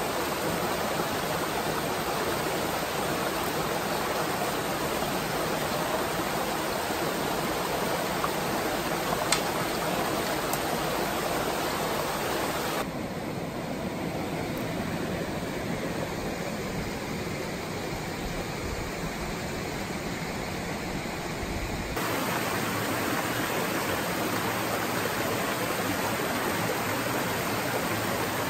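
Small mountain stream rushing steadily over rocky cascades and little waterfalls. For several seconds in the middle the rush turns duller and a little quieter, then comes back as before.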